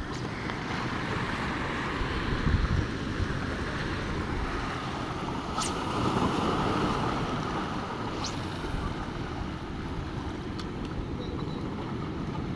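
Sea washing against breakwater rocks, with wind rumbling on the microphone; the rumble swells about two seconds in and again around six seconds. Two brief high-pitched sounds come near the middle.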